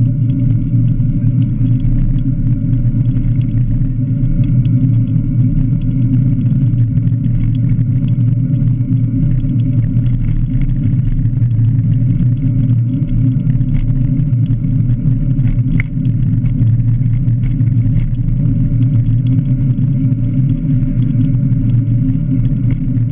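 Steady low rumble of wind and road noise on an action camera's microphone while riding a recumbent cycle along the road shoulder.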